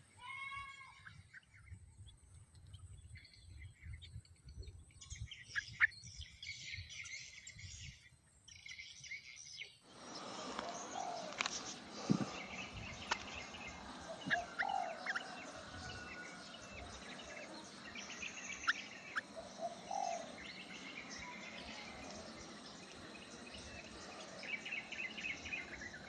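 Birds chirping and calling: scattered short chirps at first, then, from about ten seconds in, busier chirps and calls over a steady background hiss.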